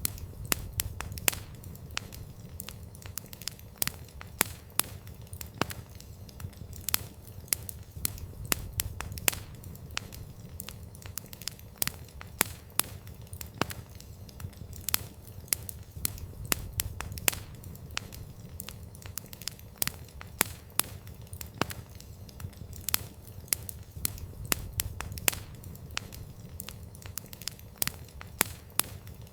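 Wood campfire crackling: irregular sharp pops and snaps, several a second, over a low steady rumble of the burning fire.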